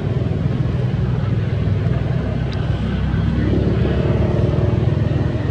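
Steady low rumble of an engine running close by, with a higher engine hum joining it about halfway through.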